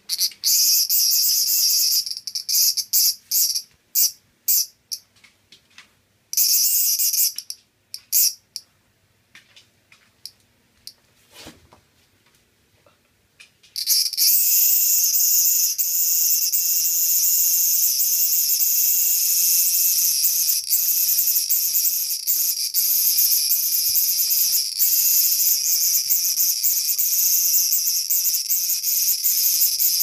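A large brown cicada (aburazemi) held between the fingers, buzzing loudly. It buzzes in short broken bursts at first, then about halfway through it settles into one continuous buzz.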